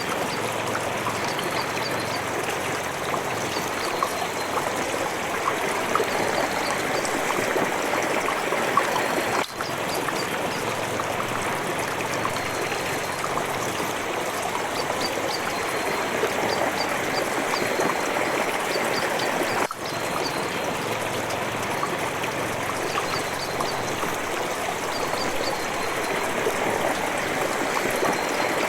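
Water trickling and dripping in a steady continuous flow, with faint small ticks over the running sound. The sound dips out briefly twice, about ten and twenty seconds in.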